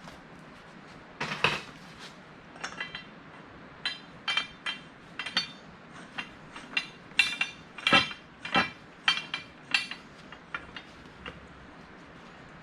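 Black steel pipe being screwed by hand into a threaded tee fitting: a string of irregular metallic clicks and clinks as the threads turn and the parts knock together.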